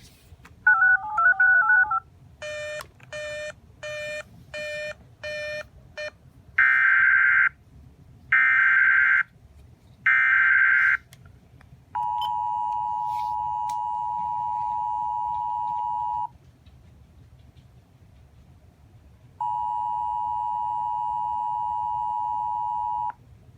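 Emergency Alert System tones for the next alert: a short warbling two-tone burst and six quick beeps, then three roughly one-second bursts of SAME header data, then the two-tone EAS attention signal held for about four seconds, a gap of about three seconds, and the attention signal again for about four seconds.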